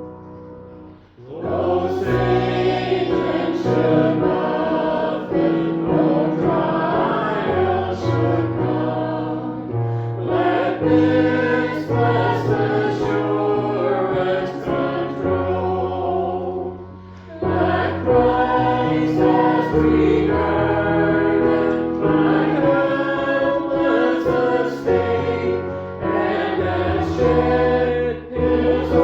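Church choir singing a hymn, pausing briefly between phrases about a second in and again about seventeen seconds in.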